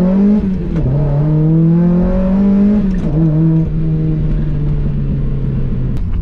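Mazda Miata's swapped-in, VVT-equipped NB2 1.8-litre four-cylinder engine pulling hard, heard from inside the cabin: the revs climb, drop at a shift about half a second in, climb again, drop at a second shift about three seconds in, then hold a steady note.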